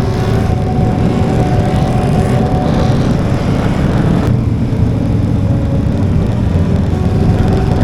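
Motorcycle engine running under way, with steady wind and road noise. Its higher tones drop away about halfway through and return near the end.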